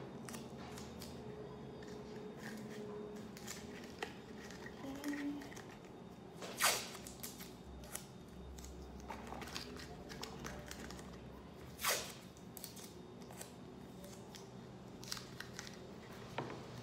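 Masking tape pulled off the roll and torn into strips by hand: scattered short rips and crinkles, two of them louder, a little before halfway and about two thirds of the way through.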